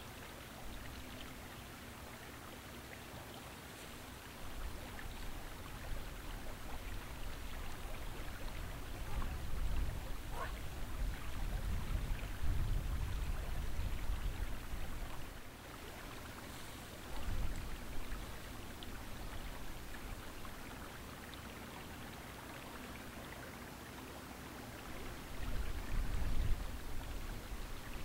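Creek water running with a steady, even hiss, while gusts of wind rumble on the microphone now and then, most strongly through the middle and near the end.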